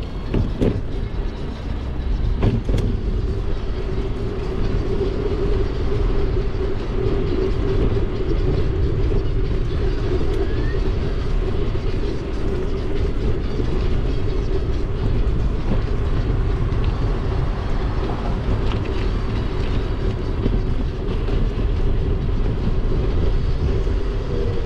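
Wind and road rumble on a bike-mounted action camera while cycling along a paved path, a steady low roar with a steady mid-pitched hum over it. Two faint knocks come in the first three seconds.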